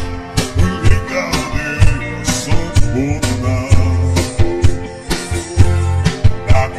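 Background music: an Ilocano song with guitar, a steady drum beat and a singing voice.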